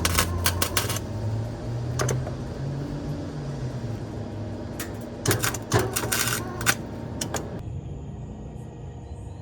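Short bursts of wire-feed (flux-core) arc welding on a car exhaust pipe, each a harsh crackle and spatter, with a low hum underneath. The crackling comes in three spells and stops a couple of seconds before the end.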